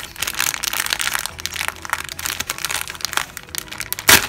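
Thin clear plastic bag crinkling and crackling as fingers handle it and pick it open, in quick irregular crackles. One loud sharp crack comes near the end.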